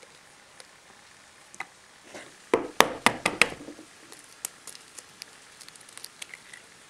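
A thick-shelled goose egg being cracked: a quick run of sharp knocks about two and a half seconds in as the egg is struck to break it, then lighter clicks and crackles of shell as fingers prise it open over a ceramic bowl.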